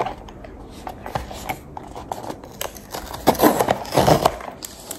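Small cardboard blind boxes being opened by hand: clicks, scrapes and rustling as the seals are torn and the flaps pulled open, with a louder stretch of rustling about three to four seconds in.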